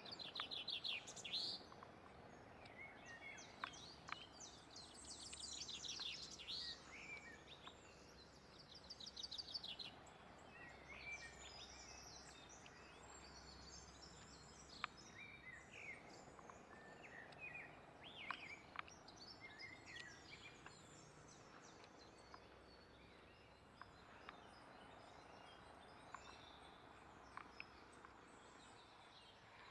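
Faint outdoor ambience with songbirds chirping and giving rapid trills, busiest in the first ten seconds, with a few faint ticks.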